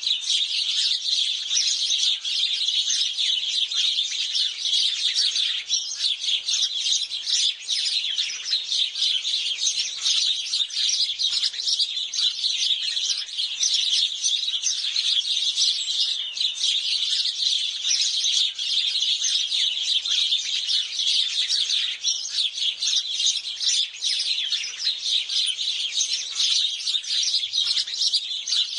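A flock of house sparrows chirping continuously, many rapid overlapping chirps at once.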